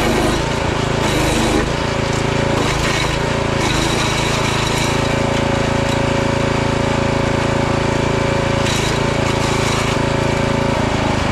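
Forest Master FM6DD 6 hp compact wood chipper's petrol engine running steadily at working speed, with rougher, noisier stretches in the first few seconds and again briefly about nine seconds in as branches are fed through and chipped.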